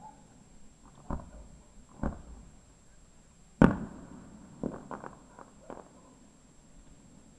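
Fireworks bursting overhead: two bangs about a second apart, a much louder bang a moment later with a short echoing tail, then a quick run of smaller pops.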